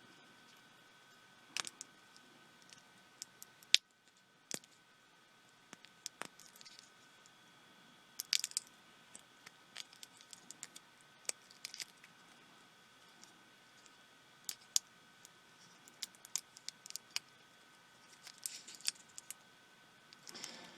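Scattered small clicks, taps and brief scrapes of hand tools and small plastic parts being handled while a pico projector is taken apart.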